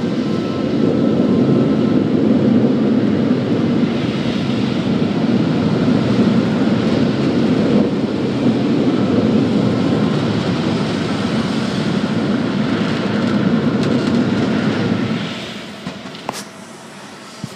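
Automatic tunnel car wash equipment working over the car, heard from inside the cabin: a loud, steady, low noise of water and wash machinery that falls away sharply about fifteen seconds in, followed by a couple of sharp clicks.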